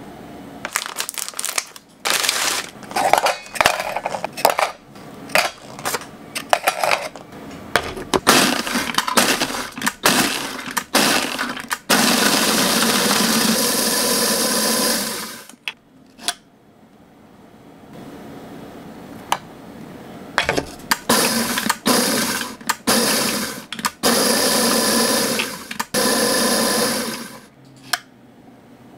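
Biscuits and their plastic packaging crackling and clicking as they are handled, then an electric food chopper running in several runs of a few seconds, crushing the biscuits to fine crumbs.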